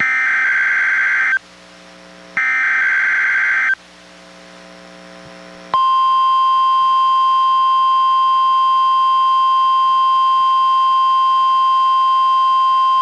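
NOAA Weather Radio Required Weekly Test played through a weather radio: two buzzy SAME digital header bursts about a second apart, the last of a set of three, then a little under two seconds later the steady 1050 Hz warning alarm tone comes on and holds.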